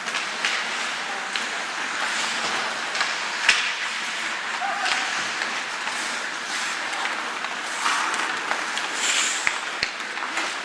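Ice hockey play: skates scraping and carving the ice, with sharp clacks of sticks on the puck, the loudest about three and a half seconds in, over a faint murmur of voices.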